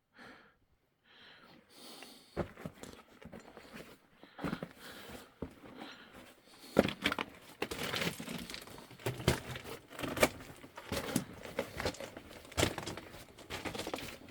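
Footsteps crunching and scuffing over loose rock and debris on a mine floor, irregular and getting busier and louder from about seven seconds in.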